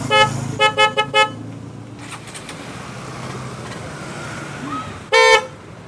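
A pair of newly fitted motorcycle horns sounding: a quick run of five short toots, then one longer toot near the end. The right-hand horn is slightly pinched, which the mechanic says makes the sound a bit wavering ('meong-meong').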